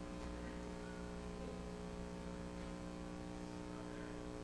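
Steady electrical mains hum in the audio system: an unchanging stack of low tones with faint hiss, and no other event.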